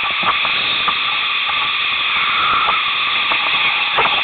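Rushing creek rapids: a steady hiss of fast-flowing whitewater around the kayak, with a few short splashes now and then.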